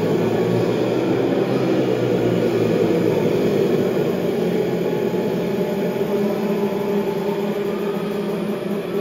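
A steady, loud wash of sound from a packed arena: a crowd cheering over held synth tones from the sound system, with no clear beat. It eases off slightly near the end.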